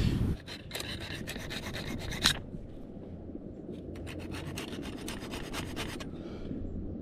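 Steel spear tips being sharpened on a flat metal file: quick repeated scraping strokes, with a sharp click at the end of the first run. The strokes pause about two seconds in and stop about six seconds in.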